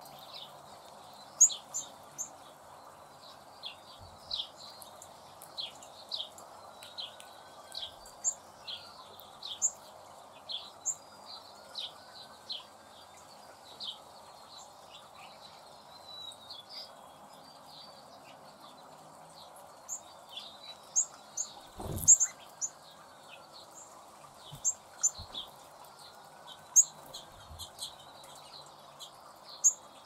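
Small birds chirping in many short, scattered calls over a steady background hiss, with one loud, sudden flurry about two-thirds of the way through.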